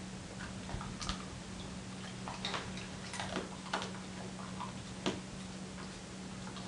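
A few irregular light clicks and taps, the sharpest about five seconds in, over a steady low hum, around a Dalmatian wearing a basket muzzle.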